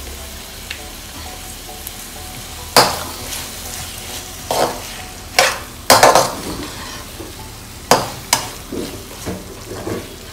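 A perforated steel skimmer stirs and scrapes onion-tomato masala in a metal kadai over a steady sizzle. From about three seconds in come a series of sharp clacks of the spoon against the pan, then lighter ones near the end.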